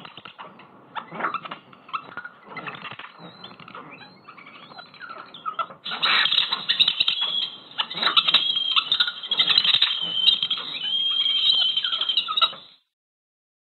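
Birdsong played as a hearing-loss simulation, dull and thin with its highest notes cut off. About six seconds in it turns louder and brighter as Phonak SoundRecover nonlinear frequency compression is switched on, shifting the birds' high notes down into audible range. It stops near the end.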